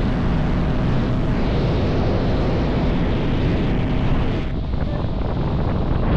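Motorboat under way: the engine runs steadily with wind rushing over the microphone. The hiss lessens a little about four and a half seconds in.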